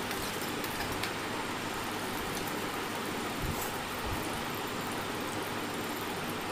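Chopped onion and green chillies sizzling in hot oil in a metal wok: a steady frying hiss, with a few faint knocks.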